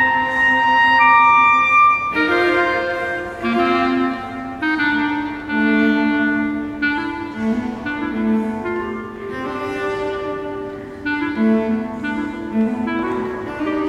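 Clarinet and cello duo playing contemporary classical chamber music: the clarinet carries a melody of held notes over bowed cello notes, changing every second or two.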